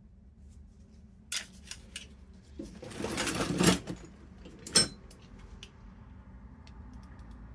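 Old metal hand tools being handled and rummaged through: a few light clicks, a scraping rustle about three seconds in, and a sharp clink near five seconds.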